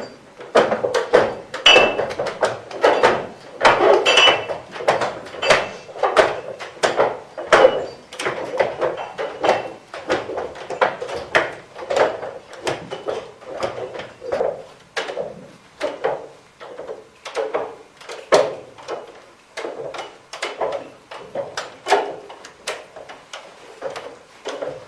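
Champagne bottles being riddled by hand in wooden riddling racks (pupitres): a rapid, irregular run of clacks, about two to three a second, as each bottle is twisted and dropped back into its slot, glass knocking on wood, with a couple of brief glassy rings. This is remuage, the stage of champagne making that works the yeast sediment down into the bottle neck.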